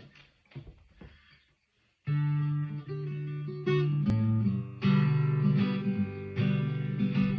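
Faint rustling, then guitar chords strummed from about two seconds in, changing chord every second or so as the song's instrumental intro.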